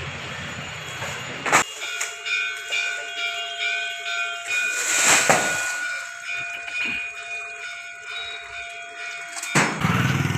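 Background music with held, bell-like tones, cut in abruptly after about a second and a half and cut off near the end. A steady motor-like noise is heard before and after it.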